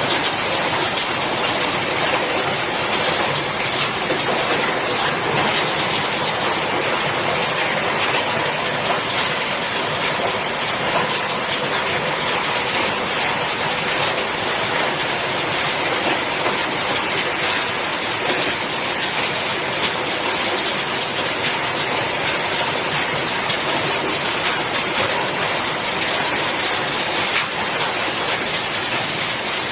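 Refrigerator recycling line running steadily, with shredded refrigerator scrap moving through conveyors and a magnetic separator in one continuous, unbroken din.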